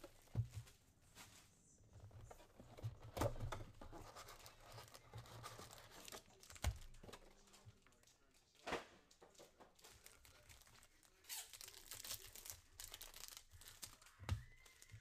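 Faint handling of a trading-card box and its foil-wrapped card packs: scattered light knocks and clicks as the box is opened and packs are handled, then a longer stretch of tearing and crinkling wrapper about eleven seconds in.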